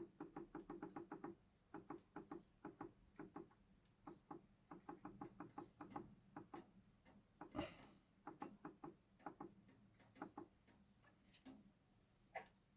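Faint, rapid clicking, quick and even at first, then in irregular clusters, with a slightly louder knock about halfway through and another near the end.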